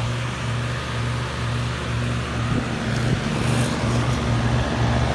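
4-ton Lennox Elite central air conditioner's outdoor unit running: a steady low compressor hum that throbs slightly, under the rush of the condenser fan, growing a little louder about three seconds in.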